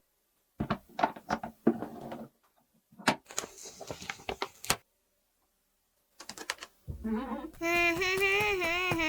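Small clicks and taps of plastic toy pieces being handled, in scattered clusters. About seven seconds in, a voice starts humming a wavering, held note.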